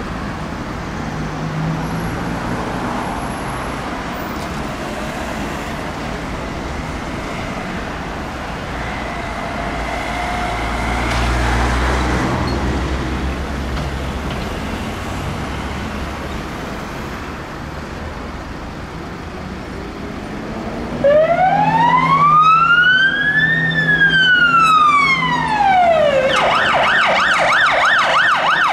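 Road traffic passing, one vehicle louder about twelve seconds in. About three-quarters of the way through, a Scania P270 fire engine's siren starts with one long wail rising and falling, then switches to a fast yelp near the end.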